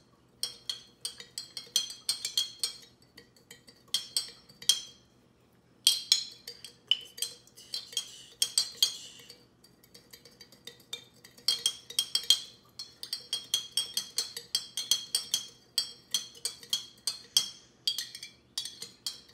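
Metal spoon stirring sugar into warm water in a glass jar, clinking rapidly against the glass several times a second in runs broken by brief pauses.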